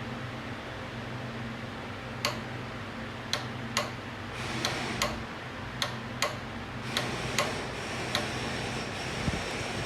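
Sharp metal clicks and taps from hand tools on an engine as bolts are tightened, about a dozen spaced irregularly from about two seconds in, over a steady fan hum.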